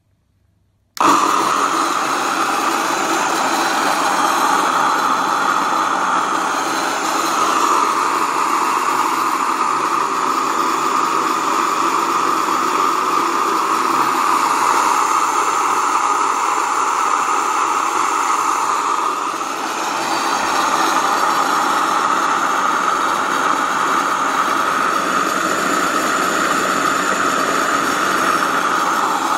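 Waldner BioTech Single electric grain mill grinding white rice into flour, a steady loud motor-and-milling noise. It starts suddenly about a second in and dips briefly once near the two-thirds mark.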